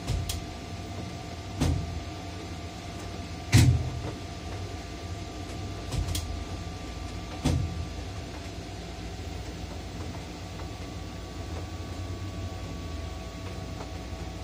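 Tower crane cab noise: a steady low hum with a faint, steady whine, broken by about five sharp knocks in the first eight seconds, the loudest around three and a half seconds in.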